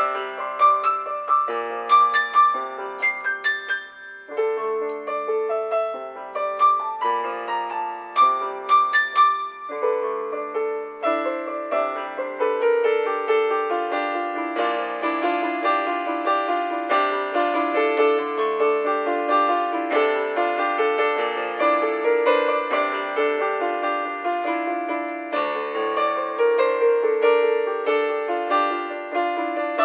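Solo piano music: chords with a repeated high note for about the first ten seconds, then a denser, flowing run of notes from about eleven seconds in.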